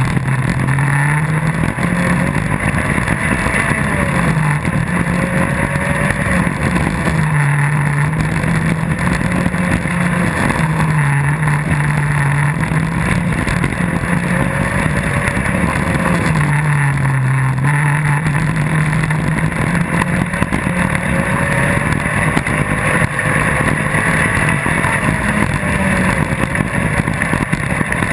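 Off-road buggy's engine running hard at speed on a gravel stage, heard from on board. Its note rises and falls with throttle and gear changes, with clear dips about 7, 11 and 17 seconds in, over a constant rush of noise.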